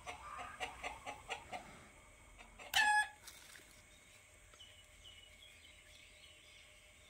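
Chickens clucking in a quick run of short clucks, then one short, loud call from a bird about three seconds in. Faint high chirps follow.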